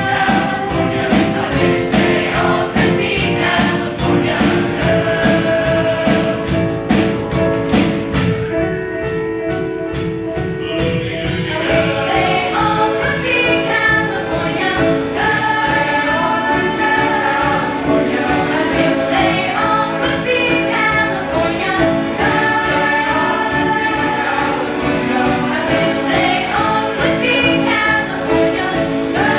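A large mixed choir singing with a live band, drums keeping a steady beat. About eleven seconds in, the voices move up in pitch.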